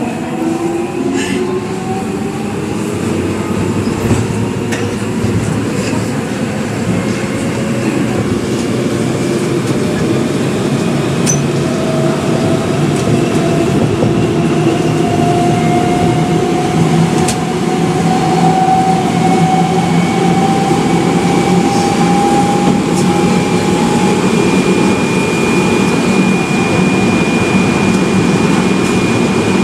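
GTO-thyristor VVVF inverter and traction motors of a Hyundai Precision-built subway EMU under power on the DC overhead supply, over the rumble of the wheels on the rails. The motor whine climbs steadily in pitch as the train gains speed, and a high steady whine grows louder near the end.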